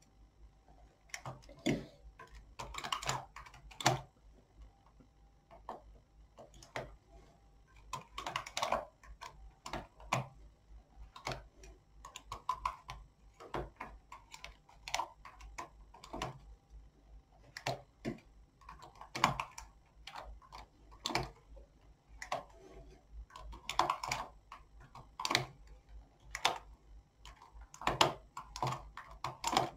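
Knitting needles clicking together as stitches are worked, in irregular little clusters about every second or so.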